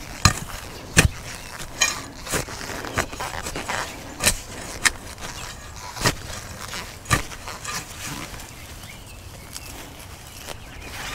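Shovel blade stabbing and scraping into loose garden soil: a string of sharp, irregular strikes, several close together and then fewer after about eight seconds, the blade catching roots in the hole.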